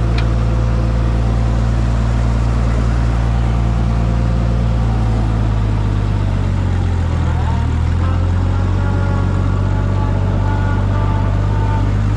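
Minneapolis Moline G900 tractor's six-cylinder LP-gas engine running steadily as the tractor is driven off. Its note dips briefly about seven seconds in, then comes back up.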